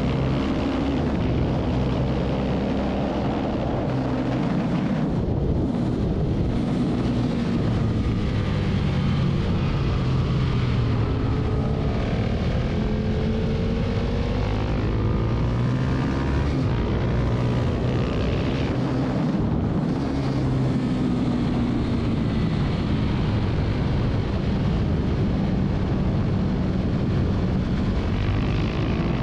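Husqvarna 701 supermoto's single-cylinder four-stroke engine revving hard on track, its pitch repeatedly climbing and then dropping as it runs up through the gears and backs off. A steady rush of noise runs underneath.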